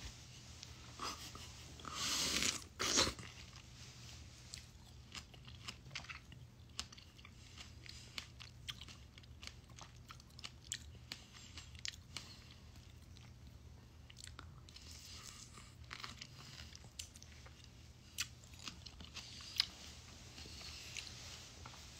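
A person chewing and biting a strawberry close to the microphone: repeated wet crunches and mouth clicks, with a louder burst of noise about two to three seconds in.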